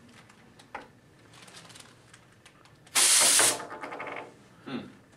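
A short, loud blast of compressed air from an EXAIR Precision Safety Air Gun, lasting about half a second and starting about three seconds in, followed by a brief clatter.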